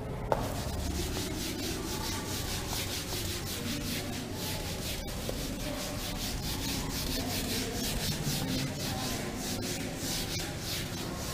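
Whiteboard eraser rubbing over a whiteboard in quick, repeated back-and-forth strokes as the writing is wiped off. There is a single sharp click about a third of a second in.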